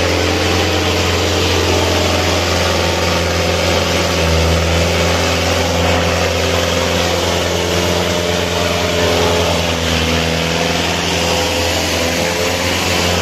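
Diesel engines of a Sonalika tractor and a Mahindra 555 tractor running hard and steady, the pitch holding nearly level, as the two tractors are hitched together and pull against each other in a tug-of-war.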